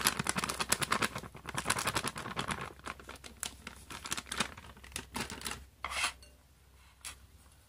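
Plastic flour packet crinkling and rustling as flour is shaken out of it into a glass bowl. The crackle is dense at first, then thins to scattered scratches, with one short louder rustle about six seconds in.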